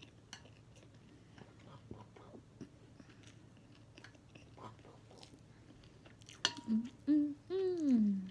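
Quiet chewing of ramen noodles, with the odd light click of chopsticks against a plate. Near the end a voice makes a few short sounds, the last a longer one that falls in pitch.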